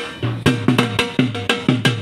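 A drum beaten in a fast, driving rhythm of about six strokes a second, many strokes with a falling, bent tone, starting with a sharp strike.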